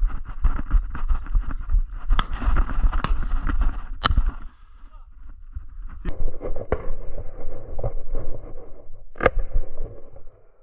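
Footsteps crunching on dry, stony ground with the rustle of gear, busy for the first four seconds and then quieter, with a few sharp cracks scattered through.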